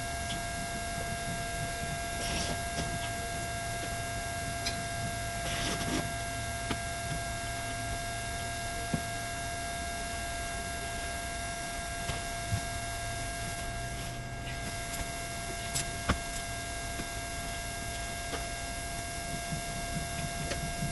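A steady electrical hum with a thin high whine, with a few brief soft rustles and faint ticks over it.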